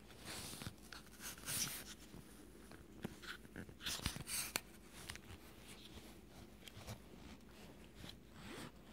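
Faint, scattered handling noise: fabric rustling and a few small clicks as a GoPro camera in its housing and mount is handled on bedding.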